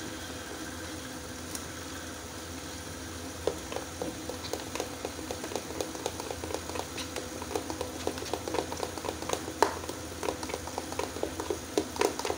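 A metal spoon stirring cocoa powder into whipped cream in a plastic bowl. After a few seconds of faint steady hum it gives a quick, irregular run of small clicks and scrapes against the bowl.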